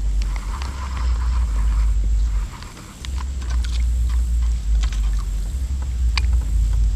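Wind buffeting the microphone in a low rumble that drops away briefly about two and a half seconds in, with scattered light clicks and knocks over it.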